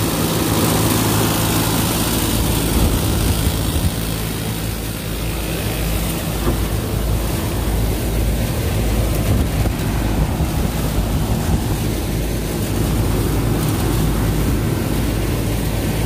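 York condensing units running, their condenser fans and compressors giving a steady hum and rush of air. The hum fades after about four seconds, leaving a low, uneven rumble of wind and handling on the microphone under the fan noise.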